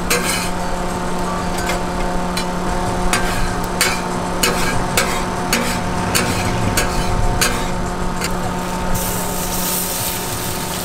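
Street food cooking: irregular sharp clicks and knocks of cooking utensils over a steady machine hum, with a hissing sizzle starting about nine seconds in.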